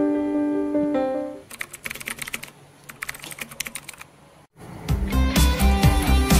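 Guitar background music fades out, then keys clatter irregularly on a laptop keyboard for a couple of seconds. After a brief silence, new background music with a steady beat begins.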